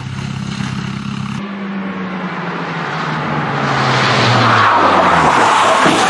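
Rally car engine approaching, its note falling as a loud rushing hiss of tyres sliding through leaves on tarmac builds; the engine note stops about five seconds in while the skid noise carries on. Before a cut about a second in, a steady engine hum.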